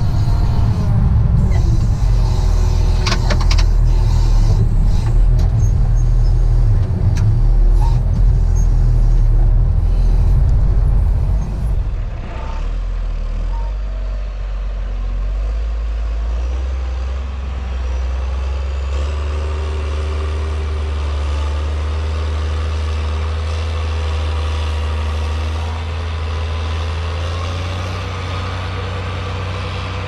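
Caterpillar 120H motor grader's diesel engine running hard with a heavy low sound. About twelve seconds in it eases off to a quieter, steadier running note.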